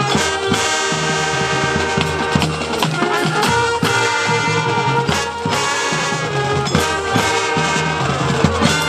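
Marching band playing: the brass section holds loud sustained chords over a drumline beating out a steady rhythm.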